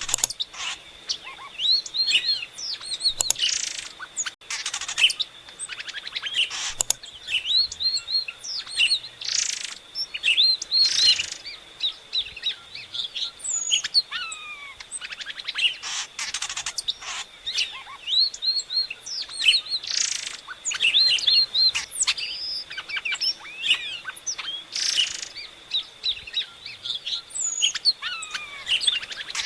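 Epaulet oriole (Icterus cayanensis) singing: phrases of quick, curving whistled notes mixed with harsher chattering notes, repeated throughout. A faint steady high tone lies behind the song.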